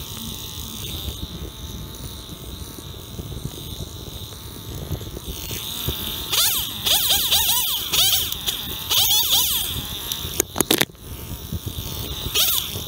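Small chainsaw revved in short blips, its buzzing pitch rising and falling several times a second, in bursts about six, nine and twelve seconds in. Two sharp knocks come between the last two bursts.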